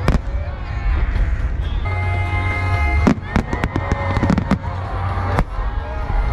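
Fireworks shells bursting, with a quick run of sharp bangs about three to four and a half seconds in and single bangs near the start and later, over a steady low rumble. Music with held tones plays along with them.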